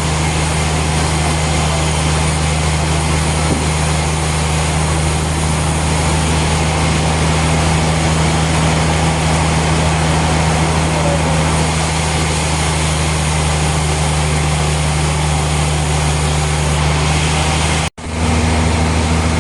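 Heavy machinery running steadily with a deep engine-like hum under a wide noisy rush; it cuts out for an instant near the end and comes back with a slightly changed hum.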